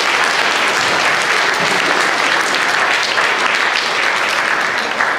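Audience applauding: many hands clapping at once, steady and loud.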